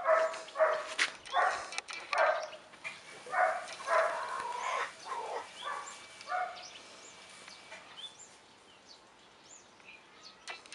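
A dog barking over and over, about three barks every two seconds, stopping about six and a half seconds in. Faint bird chirps follow.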